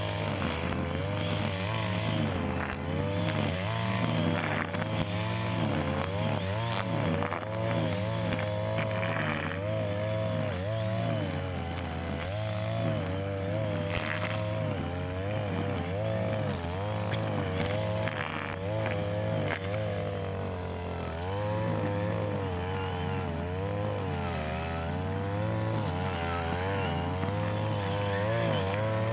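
Petrol brush cutter engine running continuously, its speed rising and falling over and over as it cuts grass.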